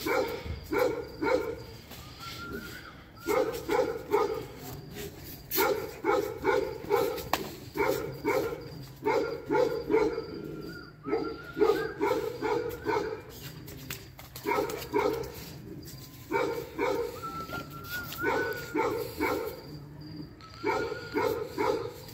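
A dog barking over and over in quick volleys of three to five barks, about three a second, with short pauses between volleys.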